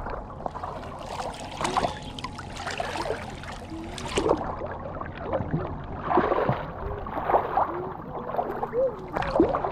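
Water sloshing and splashing, with scattered small splashes and voices in the background.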